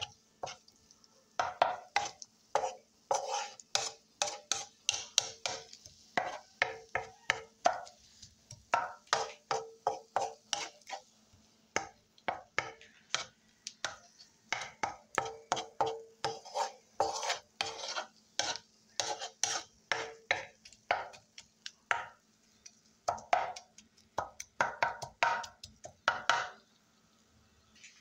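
Spatula stirring and scraping scrambled eggs in a frying pan: quick repeated scrapes against the pan in bursts with short pauses, stopping shortly before the end.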